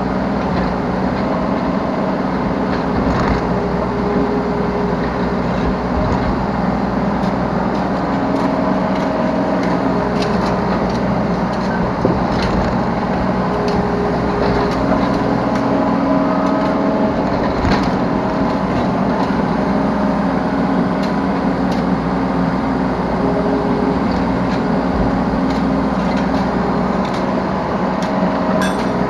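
Yanmar B3 Sigma 3-ton mini excavator's diesel engine running steadily under working load, with hydraulic whine tones that rise in and drop out as the boom and bucket move. Scattered short knocks and clicks.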